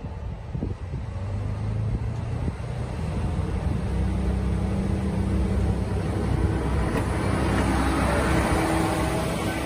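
Tsugaru Railway 'Hashire Melos' diesel railcar approaching and running past close by. Its engine and running noise grow louder over the first few seconds, then hold steady as it goes by.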